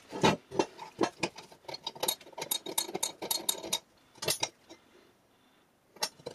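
Rusty cast-iron Wilton vise parts being handled and set down, a quick run of metal clinks and knocks, with a lull about two-thirds of the way through.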